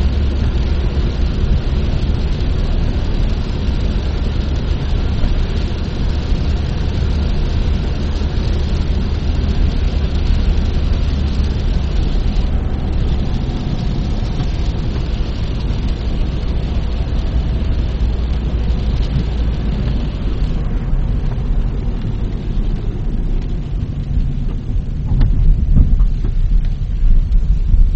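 Car road noise heard from inside the cabin while driving on a wet road: a steady low rumble with a hiss over it. The hiss fades about three-quarters of the way through, and the low rumble gets louder near the end.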